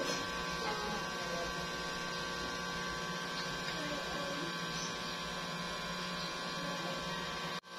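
A steady electrical hum over a faint even hiss; it cuts out for a moment near the end.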